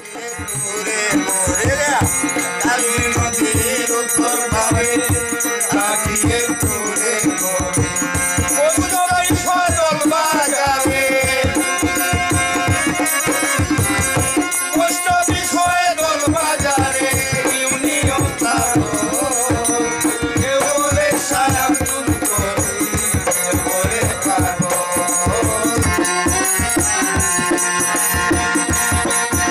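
Live Bengali Baul folk music: a male voice singing with a bowed violin, over a dhol drum beating a steady rhythm and rattling hand percussion.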